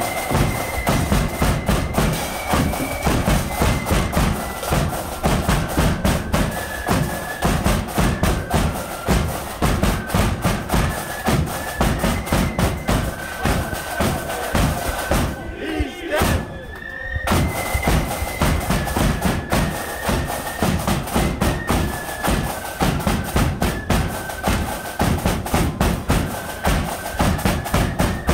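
Marching flute band playing a tune: a high melody on flutes over a bass drum struck with a mallet and other drums. The music breaks off briefly about halfway through, then starts again.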